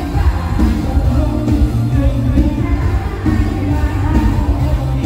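Live mor lam toei played loud through a stage PA: a singer over a band with a heavy, steady bass beat.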